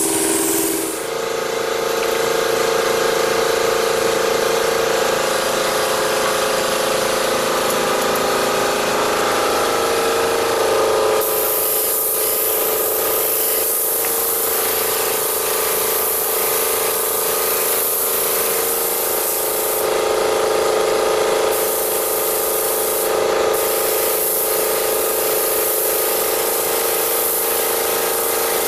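Air spray gun hissing as it sprays finish onto wood, the trigger let off briefly twice near the end, over a steady mechanical hum.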